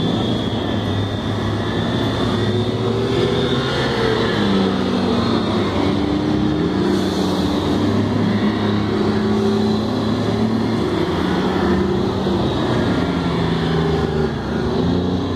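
Heavy military vehicle engines running steadily as an eight-wheeled armoured vehicle drives past, the engine note shifting slightly in pitch, with a faint high whine above it.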